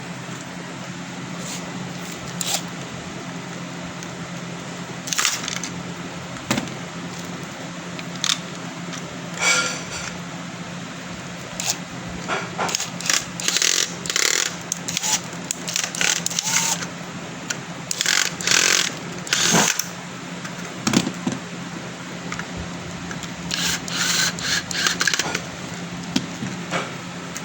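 Small metal parts and tools being handled, with irregular clinks and scrapes coming in clusters, over a steady low hum.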